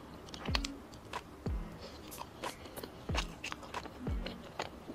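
Background music with a deep, steady beat about once a second, under soft clicking, smacking chewing sounds from eating small cream-filled puffs off a skewer.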